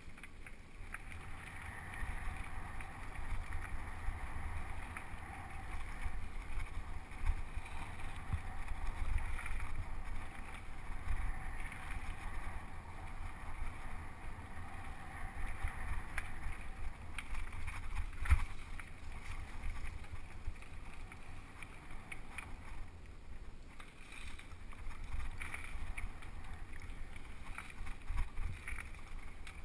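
Mountain bike riding fast down a dirt forest trail, heard through a GoPro Hero 2 on the rider: a steady rush of wind on the microphone and tyre rumble, broken by many quick rattles and knocks over bumps. The loudest is a sharp knock about eighteen seconds in.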